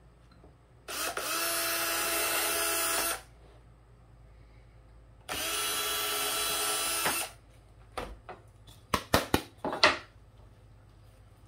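Power drill running in two steady bursts of about two seconds each, followed by a quick run of sharp clicks and knocks.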